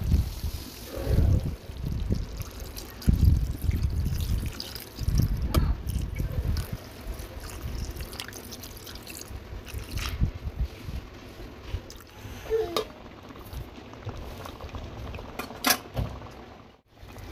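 Liquid being poured into a pan of chicken korma, splashing and trickling into the simmering curry, with a few sharp clicks.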